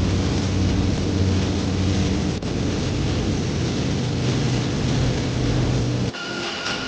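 A steady, loud mechanical rumble with a low hum. About six seconds in, it cuts off abruptly to a quieter thin, steady whine.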